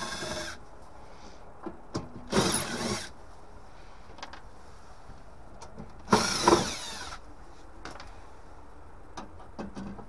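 Cordless drill-driver backing out the screws of a boiler burner door: three short bursts of the motor whining up and down, near the start, about two and a half seconds in and about six seconds in, with faint clicks of the bit between.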